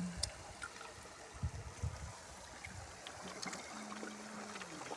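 Faint, steady trickling of flowing water, with a few low thuds about a second and a half in and a low, steady tone near the end.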